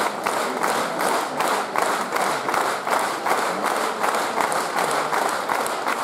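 Audience clapping in unison, a steady rhythmic beat of about three claps a second.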